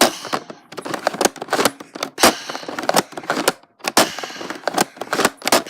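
A plastic pump-action Nerf blaster being worked: a string of sharp, irregular clicks and clacks from pumping and dry-firing it, with handling rustle in between.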